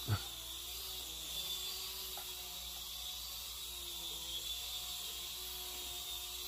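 Syma S100 mini RC helicopter hovering: its small electric motor and rotor make a faint steady hum whose pitch wavers slightly with the throttle, over a high hiss.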